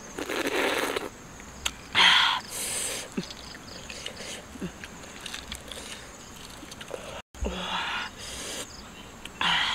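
A person eating duck eggs: several short bursts of biting and mouth noises, the loudest about two seconds in, over a steady high chirring of crickets.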